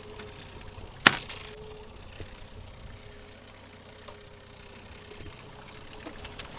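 A sharp knock about a second in, with a lighter one just after, over the low steady hum of an outboard motor idling.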